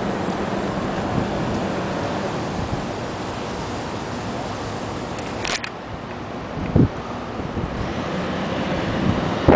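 Steady rumble of a demolition machine's engine mixed with street traffic, with a brief high scrape about halfway and two dull thumps in the second half.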